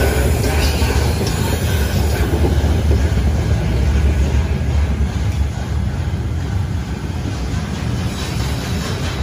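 Coaches of a steam-hauled train, behind Peppercorn A1 Pacific 60163 Tornado, rolling past: a steady, deep rumble of steel wheels on the rails.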